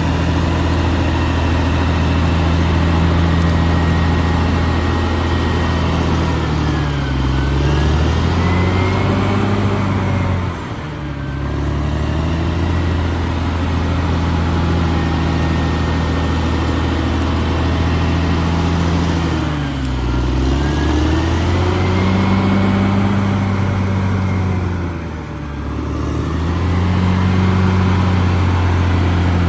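Caterpillar D6R XL bulldozer's diesel engine running at working revs. Twice its note sags and climbs back, each time followed by a brief quieter moment.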